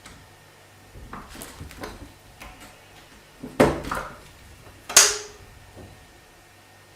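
Hard household objects clattering, then two loud bangs about a second and a half apart, the second the loudest.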